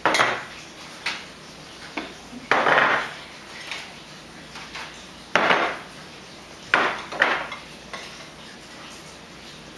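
Small side-dish bowls being set down one after another on a wooden table, giving irregular sharp clacks, some in quick pairs, the loudest about 2.5, 5.5 and 7 seconds in; the clacks grow fainter near the end.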